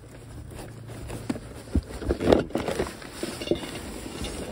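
Plastic wrapping and cloth rustling as items are pulled out of a packed box, with a few light knocks from handling.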